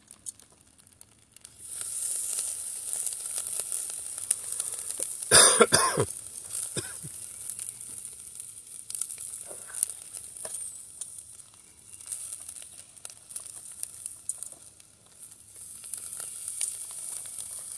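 Raw hamburger patties sizzling on the grate of a small charcoal grill over hot coals, a steady high hiss that sets in about a second and a half in, with small clicks and crackles as patties are laid on. A brief, louder crackling burst comes about five seconds in.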